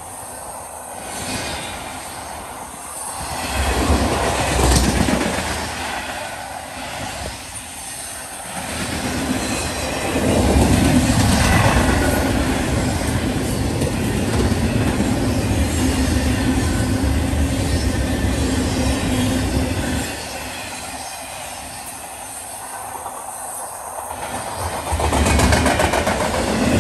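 A train rolling past on the track. It swells about four seconds in, stays loud from about ten to twenty seconds in, then eases and rises again near the end.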